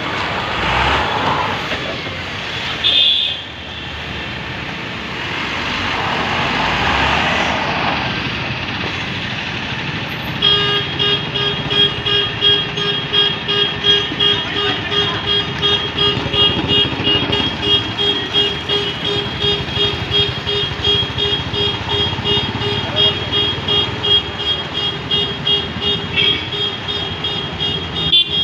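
Tata Signa multi-axle tipper truck's diesel engine running as it manoeuvres on dirt, with two swells of hiss in the first several seconds. From about ten seconds in, an electronic reversing alarm sounds in a steady repeating pulse, about two beeps a second.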